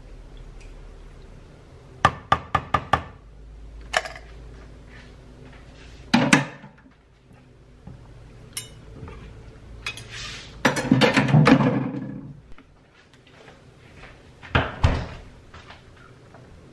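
Kitchen handling sounds on a countertop: a run of five quick taps, several single knocks, and about two seconds of clattering and scraping midway through, as a knife, a wooden cutting board and a ceramic bowl are picked up and set down.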